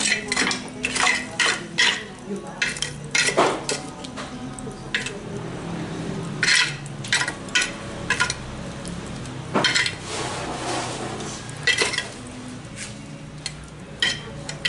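Metal tongs clinking and scraping against lumps of burning charcoal and the metal grill box as the coals are raked out toward the edges. The clinks come in irregular clusters of sharp taps.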